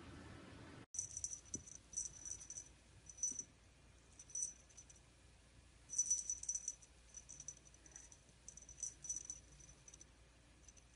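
A small jingle bell jingling in short bursts, about eight times, as a cat bats at and paws a dangling toy. It starts after a second of faint hiss.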